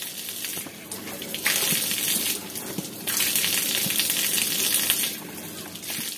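Water running and splashing from a platform drinking-water tap. It runs in two louder spells: a short one about a second and a half in, then a longer one of about two seconds starting around three seconds in.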